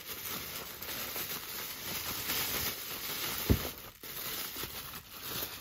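Bubble wrap crinkling as a hand rummages through it in a cardboard box, with a thump about three and a half seconds in.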